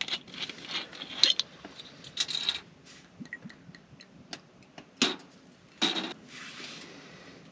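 A green glass soju bottle handled on a camp table: its metal screw cap twisted off, then a series of clicks, taps and short scrapes of glass, cap and cup, the sharpest about five and six seconds in.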